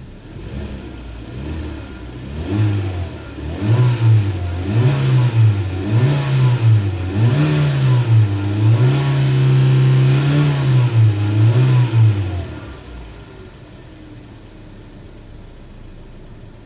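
2016 Kia Rio's 1.4-litre four-cylinder petrol engine, in Park: idling, then revved in quick rises and falls about once a second, held at higher revs for about two seconds, blipped twice more, and dropping back to a steady idle for the last few seconds.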